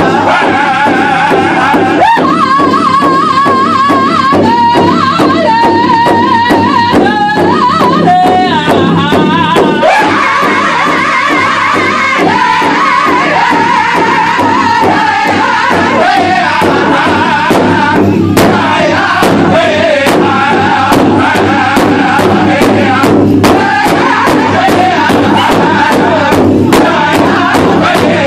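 Powwow drum group singing an intertribal song: many men's voices in a high-pitched, wavering chorus over steady unison beats of padded sticks on one large hide drum.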